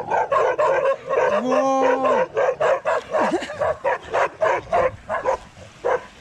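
Young Bhote (Himalayan mastiff-type) dog barking rapidly and aggressively, about three barks a second, with one longer drawn-out cry about a second and a half in; the barks grow a little fainter near the end.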